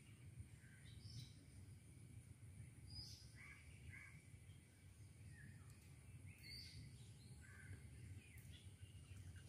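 Faint, scattered bird calls, a few short chirps and harsher calls, over a low steady outdoor hum; otherwise near silence.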